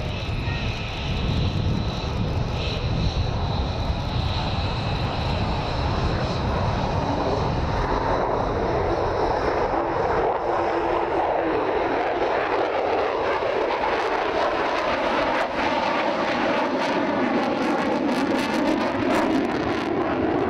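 Jet noise from an F-35 Lightning II's single Pratt & Whitney F135 turbofan as the fighter climbs away. A deep rumble gives way over the first eight seconds or so to a harsher midrange roar, with a slow phasing sweep in the last several seconds as it moves off.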